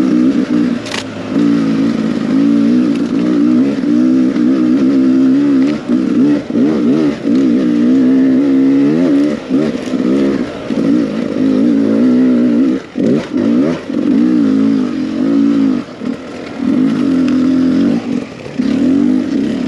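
Beta 300 RR single-cylinder two-stroke enduro motorcycle engine revving up and down again and again under a constantly changing throttle, with several brief drops in level where the throttle is shut.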